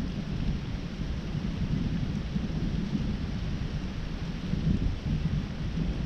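Steady outdoor nature noise: a low, fluctuating rumble with a fainter even hiss above it and no distinct events.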